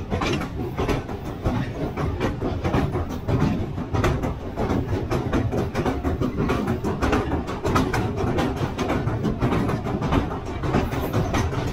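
Passenger train rolling across a steel truss railway bridge: a steady running rumble with dense, irregular clattering of the wheels over the rails.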